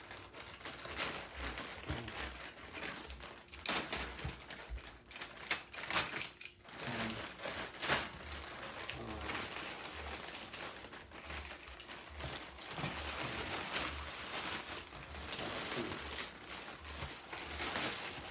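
Shipping packaging crinkling and rustling as it is handled and pulled at, with frequent small clicks and taps.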